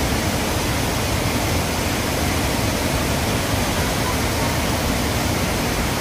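Large waterfall in full flow: a steady, even rush of falling water.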